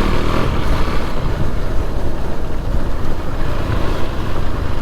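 Motorcycle riding at speed: a steady engine drone under heavy wind rush on the rider's microphone.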